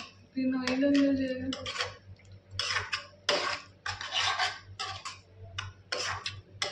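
Metal ladle scraping and stirring thick masala in a metal pan while it roasts, in quick repeated strokes about three a second from about two seconds in. A brief hummed voice near the start.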